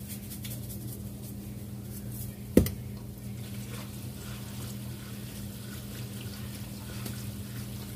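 Garlic salt shaken from a shaker into a pot of pasta: faint shaking over a steady low hum, with one sharp knock about two and a half seconds in.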